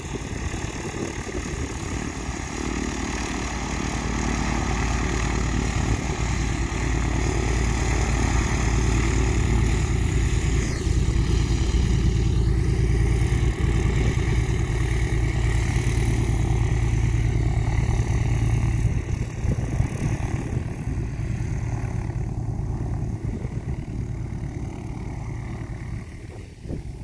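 Piper PA-24-250 Comanche's six-cylinder Lycoming piston engine and propeller running at low taxi power. It grows louder as the aircraft passes close by, then fades as it taxis away.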